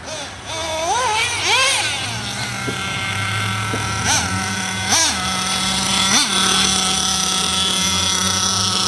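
HSP Bazooka radio-controlled car's motor running with a high whine. Its pitch swoops up and down as the throttle is worked, dips sharply three times about four, five and six seconds in, then holds steady.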